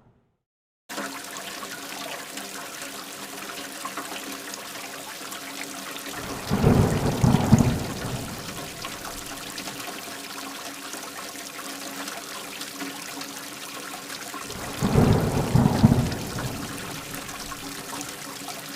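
Steady rain falling, with two long thunder rumbles, one about six seconds in and another near the end, over a faint steady hum.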